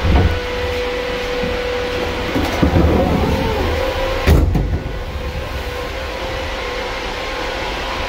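Iveco 72C17 refrigerator truck's machinery running with a steady hum and a whine, with a cluster of knocks and clatter about halfway in and one sharp knock a little later.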